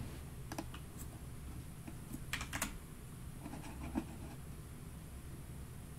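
A few faint, scattered clicks of a computer keyboard and mouse, typed and clicked at irregular intervals while a website is brought up.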